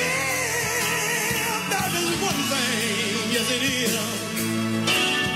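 Recorded gospel song: a singer holding notes with a wide, wavering vibrato over a steady band accompaniment.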